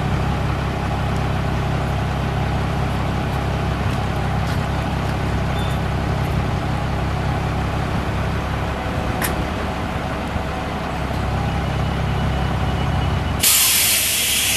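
International DT466 inline-six turbo diesel of a bucket truck running steadily at idle. Near the end a sudden loud hiss of air bursts out of the truck's air brake system and then trails off.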